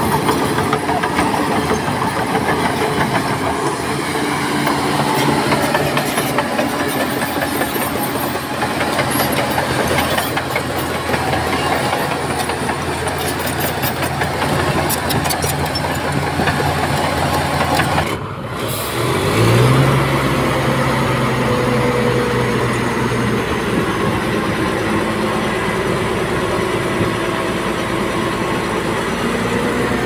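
Heavy diesel engines of earthmoving machinery running steadily under load. About eighteen seconds in the sound cuts out for a moment, then an engine revs up and holds a higher, steady pitch.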